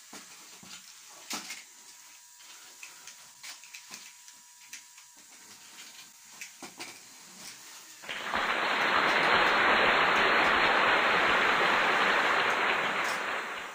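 Faint clicks and light whirring from small Lego robots' plastic parts and motors. About eight seconds in, a loud, steady hiss-like rushing noise comes in suddenly, holds, and fades just before the end.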